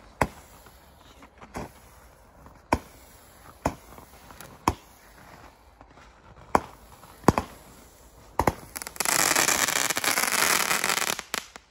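Katan 'KING' 12-shot firework battery firing, with a sharp report roughly every second as the shots go up. Near the end comes about two seconds of dense, loud crackling.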